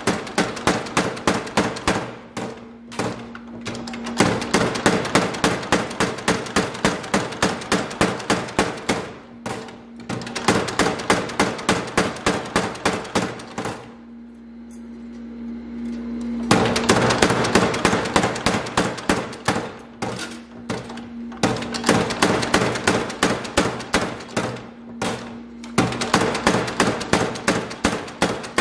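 Massey overhanging 1cwt spring power hammer pounding a red-hot 6 mm steel billhook blank in runs of rapid blows, about four a second, with short pauses between runs. The longest pause comes about halfway through. The machine's steady hum carries on through the pauses.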